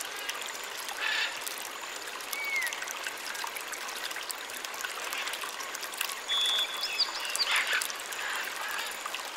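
Water trickling and splashing steadily in the muddy water at the bottom of a hand-dug, concrete-lined well, with louder splashes about a second in and again near the end. A few short chirps are heard over it.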